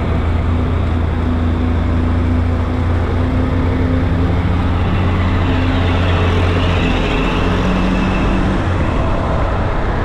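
Small engine of an auto-rickshaw (tuk-tuk) running steadily under way, heard from inside the open cab with road and wind noise while it overtakes a truck. The engine note shifts about seven seconds in.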